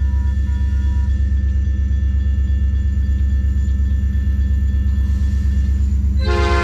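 Railroad crossing bell ringing over the steady low rumble of an approaching train led by EMD SD40-2 diesel locomotives. Just before the end, the lead locomotive's air horn starts blowing.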